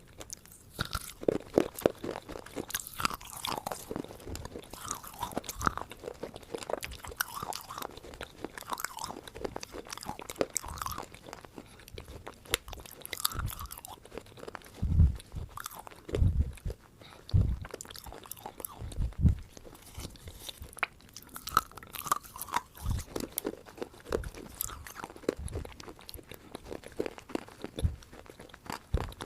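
A person biting and chewing something crunchy close to the microphone: a dense, irregular run of crackles, with a few heavier bites in the middle.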